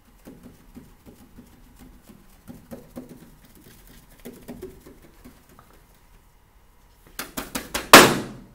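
Whiteboard eraser rubbing across a whiteboard in a series of soft wiping strokes. About seven seconds in, a run of loud, rapid knocks starts, the loudest about a second later.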